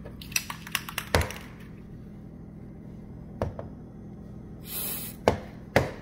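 A series of sharp knocks and clicks: several close together in the first second and a half, then single ones about three and a half, five and a quarter and nearly six seconds in, with a brief hiss just before five seconds. A steady low hum runs underneath.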